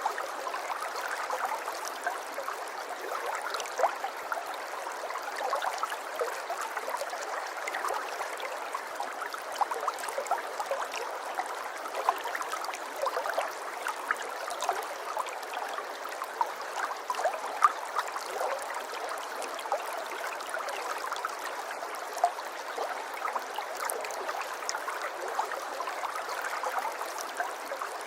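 Steady sound of running water, like a small stream, with many faint small clicks scattered through it.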